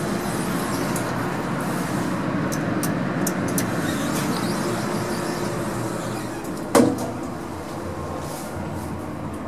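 Passenger lift running: a steady mechanical hum and rumble, with one sharp thump about seven seconds in.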